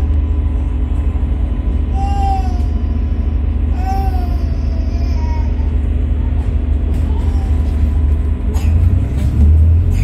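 Volvo B5LH hybrid double-decker bus on the move, heard from inside: a steady low drivetrain rumble with a constant hum, and short rising-and-falling whines every couple of seconds. A few rattles come near the end, and the low rumble swells just before it.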